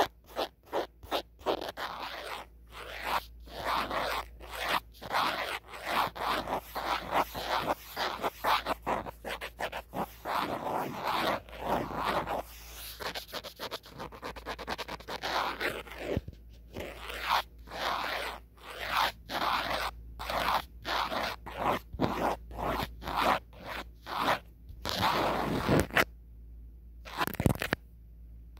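Natural fingernails scratching and tapping on the back of an old phone, close to the microphone: quick scratching strokes several times a second, with a short pause near the end.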